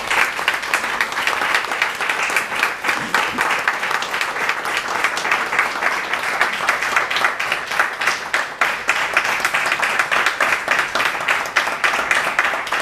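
Small audience applauding steadily, many hands clapping at once.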